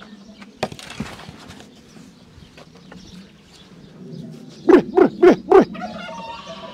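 A man calling sheep shepherd-style: four quick, loud low 'büp' sounds about five seconds in, each dropping in pitch, after two sharp knocks near the start.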